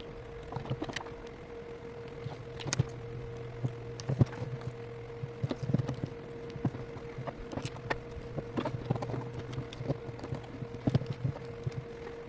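Irregular small clicks and taps of hands and tools working on an iPhone 8 while fitting new screen adhesive, over a steady low electrical hum.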